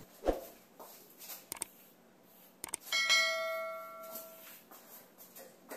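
Subscribe-button animation sound effect: a few short clicks, then a bell chime about three seconds in that rings with several steady tones and fades out over about a second and a half.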